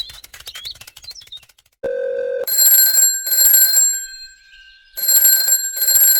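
A telephone ringing in two double rings, each ring short and the pairs a little over a second apart. A run of rapid clicks comes before it.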